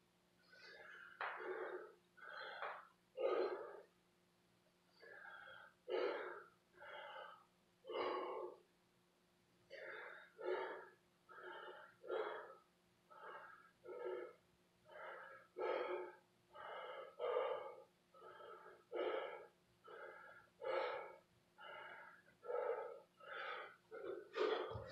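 A man breathing hard, panting about once a second with a couple of short pauses, catching his breath after burpees.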